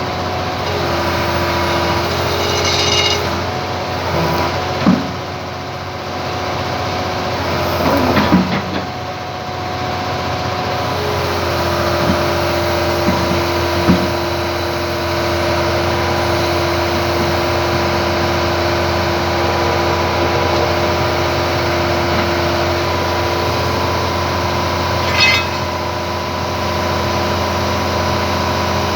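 Hitachi excavator's diesel engine running steadily, with a few sharp metal knocks and clanks over it from work on the track.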